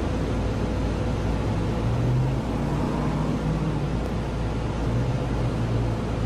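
Street traffic: a steady rumble of road noise, with a vehicle's low engine hum swelling twice, about two and five seconds in.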